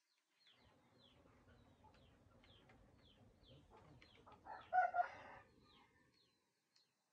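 A rooster crowing faintly, a short two-part call about four and a half to five and a half seconds in, over high bird chirps that repeat about twice a second.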